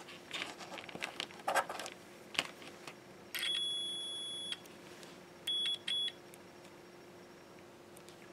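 Digital multimeter's continuity beeper as its probes touch the cable's contacts: one steady high beep of about a second, then two short beeps, each one signalling a good connection through the conductor. Light clicks and rustling of the probes and cable being handled come first.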